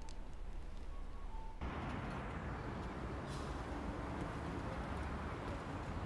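Steady outdoor background noise, a low rumble with a hiss, that suddenly gets fuller and louder about a second and a half in.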